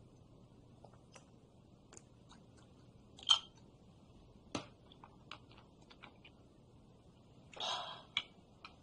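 Hard candy crunched and chewed in the mouth, taken with a shot of soju: a scatter of small crisp crunches, the loudest about three seconds in. A short rush of noise comes near the end.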